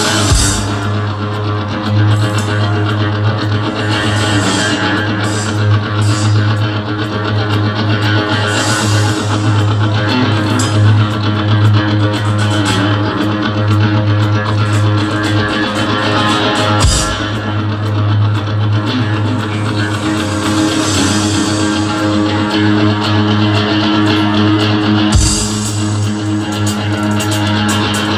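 Live rock band playing loud: electric guitar, bass guitar and drum kit through the concert sound system, over a strong held low bass note with a few heavy hits.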